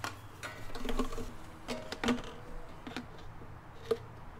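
Light plastic clicks and knocks from handling the transmission dipstick and a plastic funnel fitted into the dipstick tube, a handful of separate taps, the sharpest near the end, over a faint low hum.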